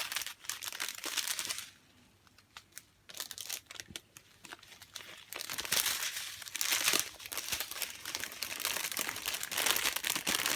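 Small plastic bags of diamond painting drills crinkling as they are handled, in irregular stretches with a quiet spell of about three seconds near the start.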